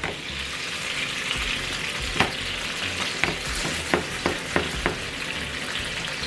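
Meatballs sizzling as they fry in oil in a pan, a steady hiss, with a utensil clicking against the pan about six times in the middle as they are turned.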